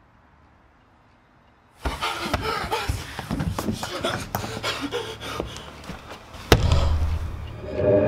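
Room tone, then about two seconds in a sudden burst of clattering knocks and scuffling, ending in one loud slam about six and a half seconds in with a low rumble after it.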